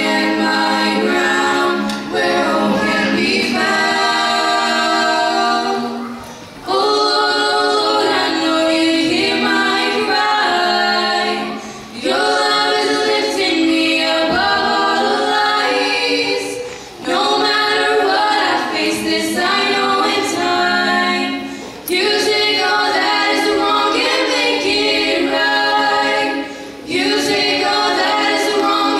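Three female voices singing a cappella together through handheld microphones, in long sung phrases with short breath pauses about every five seconds.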